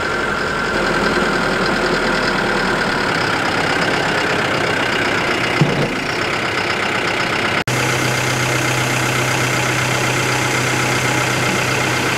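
An engine running steadily. There is a brief break about two-thirds of the way through, after which a steady low hum runs under it.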